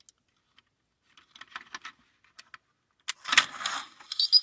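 A tin toy robot being switched on: a few faint handling clicks, then about three seconds in a sharp click and a short clattering rattle as its mechanism starts. Near the end a high-pitched whine begins as its mechanical voice box starts playing too fast, which the repairer puts down to a badly connected variable resistor.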